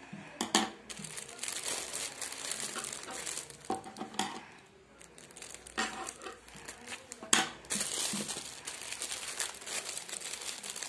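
Clear plastic wrapping crinkling and rustling as it is cut open with scissors and pulled apart by hand, with several sharper, louder crackles and a brief lull about five seconds in.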